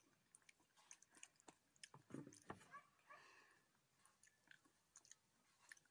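Near silence, with faint scattered clicks of a child chewing a snack.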